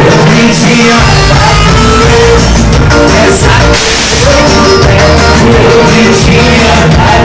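Loud live band music with singing; the bass drops out for the first second, then comes back in.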